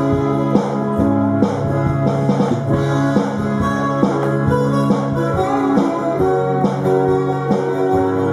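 Two amplified frame-body silent guitars playing together, picked notes and chords without singing.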